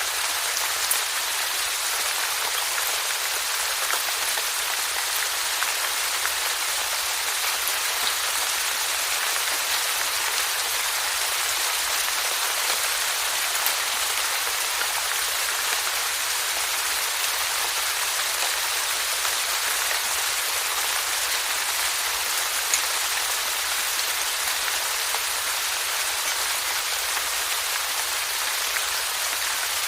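Steady rainfall: an even hiss of rain with scattered individual drops ticking.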